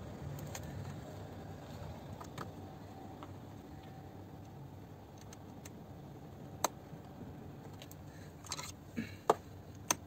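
Plastic seat trim and height-adjuster parts being handled and fitted: low rustling and rubbing, a single sharp click about two-thirds of the way through, then several clicks and knocks near the end as the parts are pressed into place.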